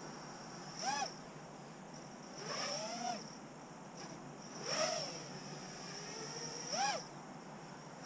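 The FuriBee Nebula 230 racing quad's 2205 2600KV brushless motors and propellers whine from high overhead. The whine swells four times with throttle punches, rising and then falling in pitch each time.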